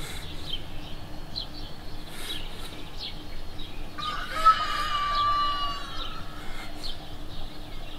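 A rooster crows once, a held call of about two seconds starting halfway through, over small birds chirping.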